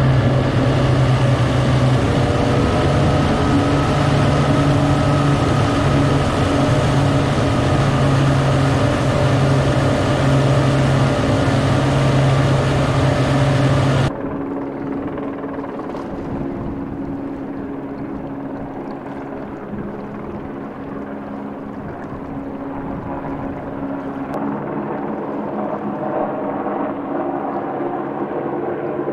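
Engine of a fast patrol boat running at speed, a steady drone with the rush of its wake and wind. About halfway through it cuts off suddenly to a quieter, duller steady engine hum heard from further away.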